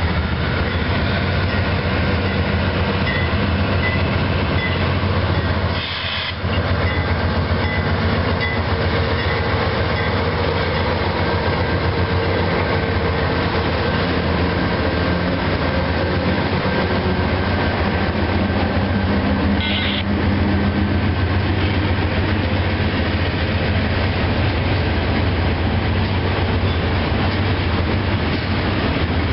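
Diesel-hauled freight train passing close by: the locomotives go past first, then a string of freight cars rolls by, making a steady heavy rumble of engines, wheels and rails.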